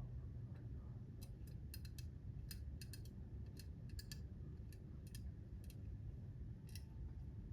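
Irregular light metallic clicks and ticks as a hand reamer in a pin vise is twisted in a brass clock-plate bushing to open up its pivot hole, over a low steady hum.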